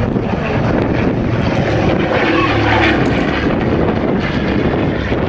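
De Havilland Dragon Rapide biplane's twin 200 hp Gipsy Six piston engines and propellers running steadily as it flies its display.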